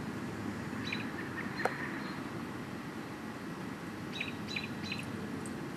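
A bird chirps in a few short calls, two groups about three seconds apart, over a steady low background rumble. There is one sharp click about a second and a half in.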